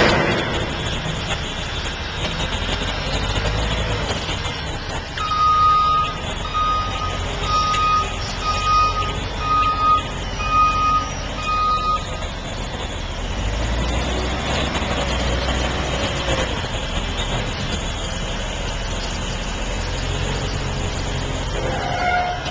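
Heavy construction vehicle's engine running with a steady rumble, its reversing alarm sounding about eight evenly spaced beeps, roughly one a second, in the first half.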